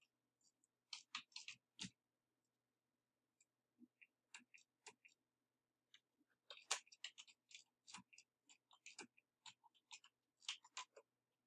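Faint, irregular clicking: quick clusters of sharp ticks with short quiet gaps between them.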